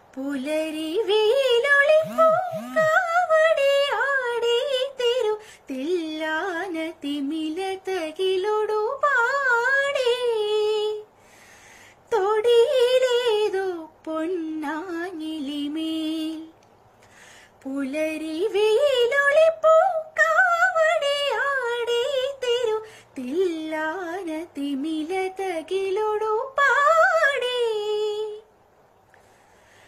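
A woman singing a slow melody solo and unaccompanied, her voice sliding and wavering through ornamented notes in long phrases with short pauses between them.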